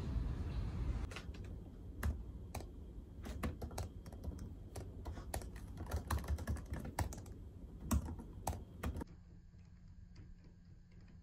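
Typing on a 2018 MacBook Air keyboard: irregular light key clicks that stop about nine seconds in. A low outdoor rumble is heard for the first second, before the typing starts.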